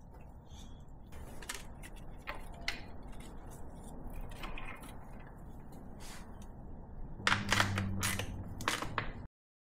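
Plastic dipstick guide tube of a BMW M57 diesel being handled and pushed down into its bore in the block on its new O-ring: scattered small clicks, knocks and plastic rubbing. A cluster of sharper clicks about seven seconds in comes with a brief low hum.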